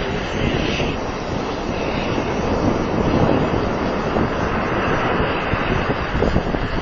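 Ocean surf and wind buffeting the microphone, a steady noisy rush with no clear tone.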